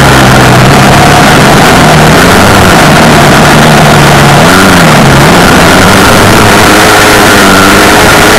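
An off-road vehicle's engine running, very loud, over a dense rumble of noise; its revs dip and rise again about halfway through.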